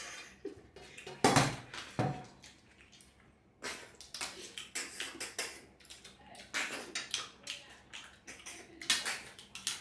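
Stainless steel plates clanking, two loud knocks about a second in and at two seconds, then scattered small clinks and wet sucking and chewing noises of snails and curry being eaten by hand.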